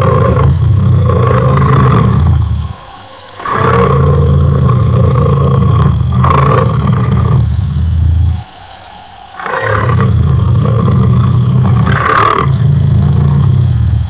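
Lion roar sound effect: long, loud, deep roars of about five seconds each, breaking off briefly about three seconds in and again about nine seconds in.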